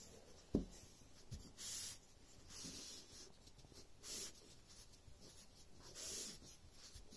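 Faint rustling swishes of fabric being rolled by hand onto a wooden dowel and sliding across a cutting mat, in a few soft strokes. A soft knock about half a second in.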